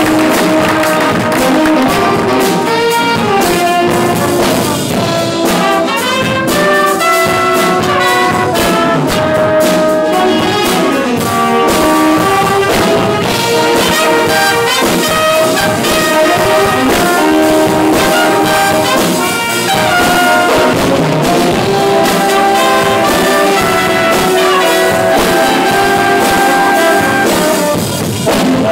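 Jazz band playing a loud, funky number: trumpets, trombones and saxophones sound together in held and moving ensemble lines over a steady beat.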